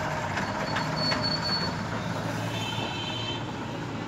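Steady rumble of passing vehicles, with a thin high squeal from about half a second in to nearly two seconds and a brief shrill sound around three seconds in.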